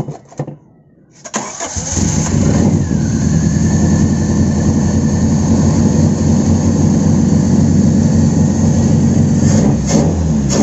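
Car engine cranked by the starter and catching almost at once about a second and a half in, then running loud and steady at a fast idle, a sign that the hard-starting fault is cured, though the mechanic says the combustion is still not right.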